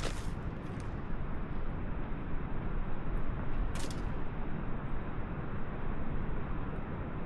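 Steady rushing background noise with no distinct source, heaviest in the low end, and one short crackle about four seconds in.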